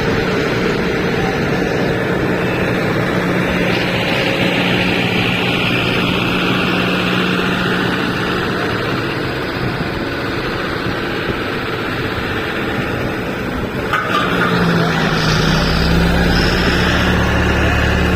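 Heavy vehicle engines running steadily. About fifteen seconds in, a deeper, heavier engine rumble comes in.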